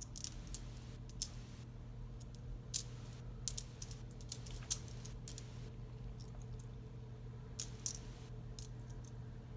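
Copper pennies clinking against one another as they are handled and sorted, in scattered clicks that come in two clusters, over a faint steady hum.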